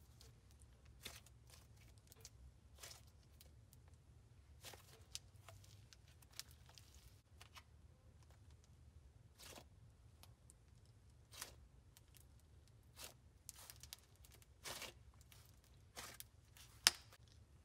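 White slime mixed with polymer-clay sprinkles being squeezed and pressed by hand: faint, scattered crackles and small pops, with a sharper click near the end.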